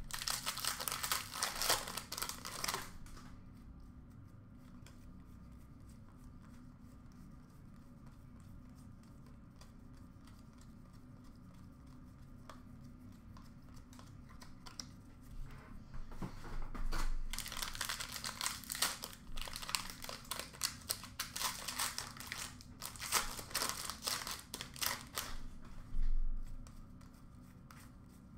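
Wrappers of 2017-18 Upper Deck Series 1 hockey card packs crinkling and tearing as the packs are opened. The crackle comes in two spells, a short one in the first few seconds and a longer one through much of the second half, with quiet card handling between.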